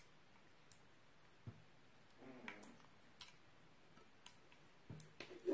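Faint, sparse clicks and taps of a silicone spatula against a glass baking dish while stirring a runny glue and dish-soap slime mixture, with a soft wet stirring sound about two seconds in and a louder knock at the very end.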